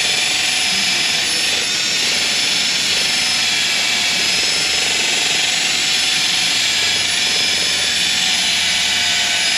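Cordless drill spinning a wire wheel brush against the rusty inner hub bore of a steering knuckle, scouring the rust off in one steady, continuous whir.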